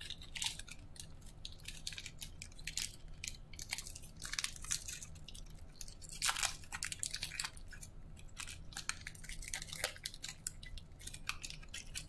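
Foil wrapper of a 2019-20 Panini Donruss Optic basketball card pack crinkling and crackling in the hands as it is worked and torn open. The crackles come irregularly, thickest about four to six seconds in.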